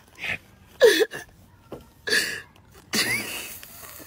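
A person making about four short, breathy vocal bursts, the one about a second in the loudest.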